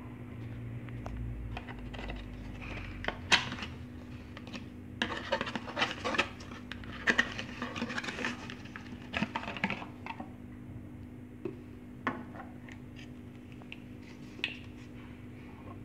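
Clicks, scrapes and clatter of small hard objects being handled, busiest in the middle and thinning to a few single clicks near the end, over a steady low hum.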